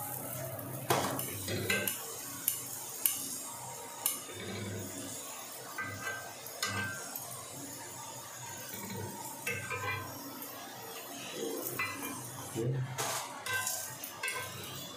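Metal spatula scraping and tapping on a flat griddle (tawa) as a stuffed flatbread frying in oil is turned and pressed, with a light sizzle underneath. Several sharp taps come in the first few seconds, then softer scrapes.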